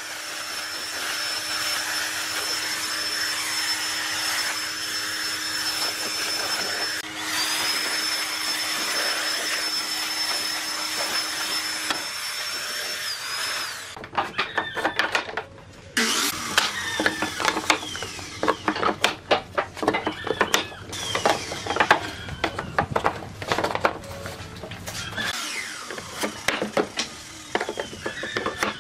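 Electric hand blower running with a steady rush and high whine, dropping for a moment about 7 s in and shutting off around 13 s. Then a string of knocks, taps and clatter from thin pine panels being handled and pressed into a wooden frame.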